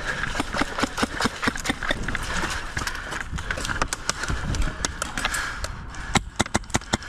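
Hurried footsteps and gear rattling over gravelly ground with scattered airsoft shots, then near the end a quick string of sharp airsoft rifle shots, several a second.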